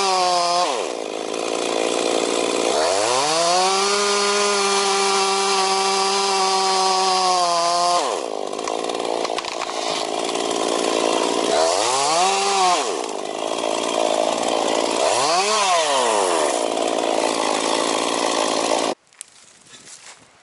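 Two-stroke chainsaw revving and cutting into a thick fallen tree trunk: long full-throttle runs at a steady high pitch, dropping back between them, with two short rev-ups in the middle. The sound cuts off suddenly near the end.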